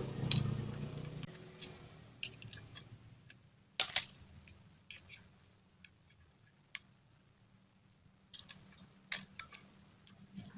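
Scattered light clicks of metal engine parts being handled as the upper camshaft sprocket is fitted onto the timing chain and camshaft. There is a small cluster of clicks near the end.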